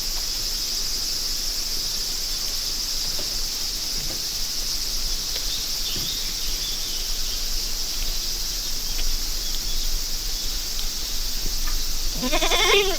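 Steady, shrill chorus of summer insects. Near the end a short pitched call rises and falls over it.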